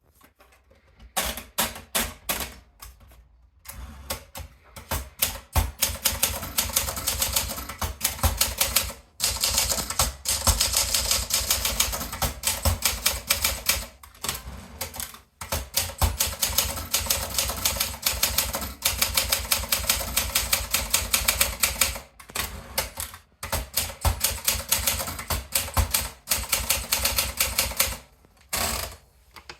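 Olympia Traveller portable manual typewriter being typed on: rapid runs of key strikes, broken by brief pauses every few seconds.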